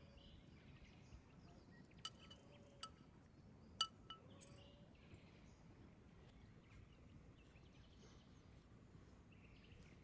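Near silence: faint outdoor ambience with four light, ringing clinks between about two and four and a half seconds in, the third the loudest.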